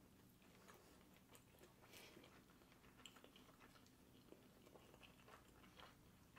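Faint chewing: two people chewing mouthfuls of sushi with closed mouths, soft scattered wet mouth clicks over a low steady hum.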